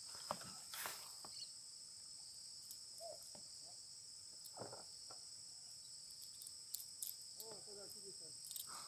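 Faint, steady insect chorus holding two high pitches throughout, with a few soft clicks and knocks.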